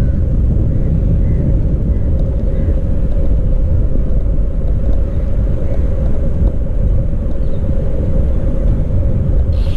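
Steady rush of wind on the microphone while riding a bicycle, with a low hum from the ride; a little more hiss comes in near the end.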